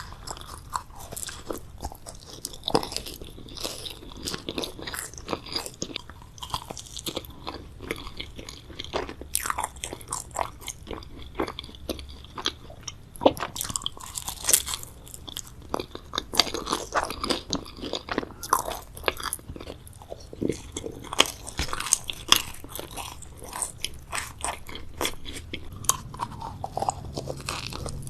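A person biting and chewing crunchy food close to the microphone, with many sharp crackling crunches throughout.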